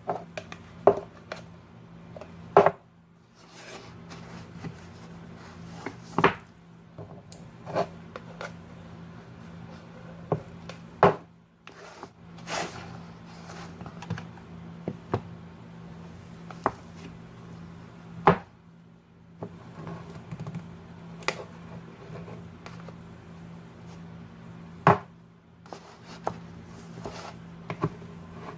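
Scattered knocks and clicks of a spoon or scoop against a plastic cup and ice-cream tub as ice cream is packed into the cup, over a steady low hum.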